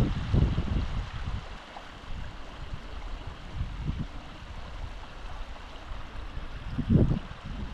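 Steady rushing of water, with gusts of wind buffeting the microphone, strongest about a second in and again about seven seconds in.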